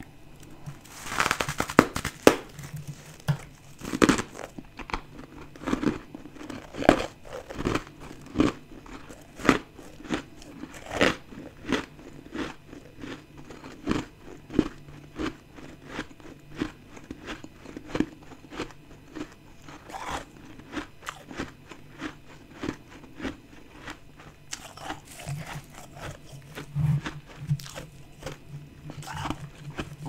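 Close-up biting and chewing of soft chunks of ice coated in freezer frost. There is a loud crunching bite about a second in, then crunches roughly once a second as the ice is chewed.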